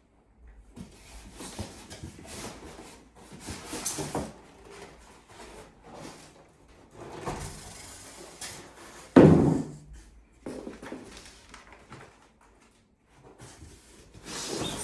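Large cardboard TV box being handled and opened: irregular scraping, rustling and knocks, with one loud thump about nine seconds in.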